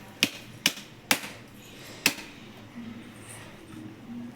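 A few sharp taps of a spoon or utensil knocking against a mixer jar or container, four in the first two seconds, as finely ground biscuit powder is scooped out and transferred.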